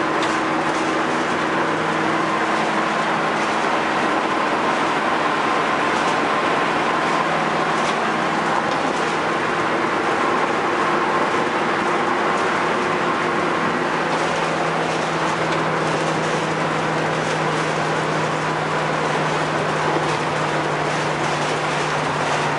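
Inside the cab of a 1998 Chevy P30 step van cruising at highway speed: steady road and wind noise over its 5.7-litre V8 running at constant revs, with a low, even drone.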